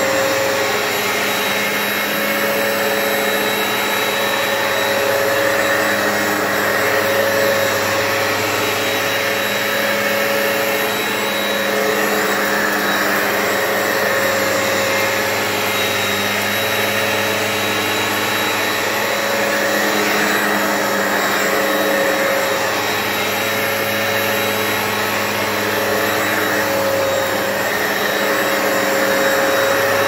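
Hoover Power Path upright carpet cleaner running steadily while cleaning carpet, its motor giving a constant hum with slight swells every few seconds.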